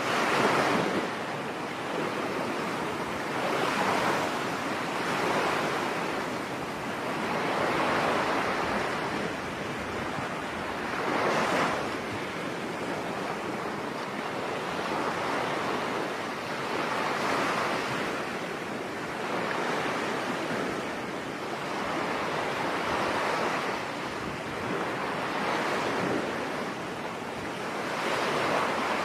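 Ocean waves washing onto a beach, a continuous surf noise that swells and recedes every few seconds.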